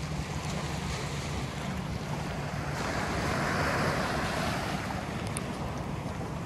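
Small sea waves washing up on a sandy beach and around rocks, with one louder wash swelling up and fading a little past the middle. Wind buffets the microphone underneath.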